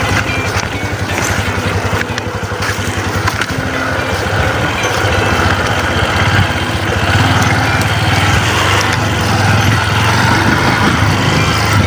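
Motorcycle engine running steadily while being ridden, with wind and road noise over it; it grows a little louder in the second half.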